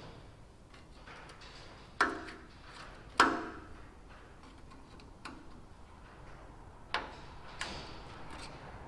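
Metal tapping on a fuel tank's sender-unit locking ring to work it loose: two sharp strikes about a second apart, each ringing briefly, then two lighter taps a few seconds later.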